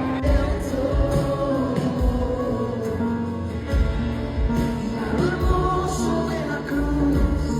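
Christian worship song: singing over music with a steady low beat.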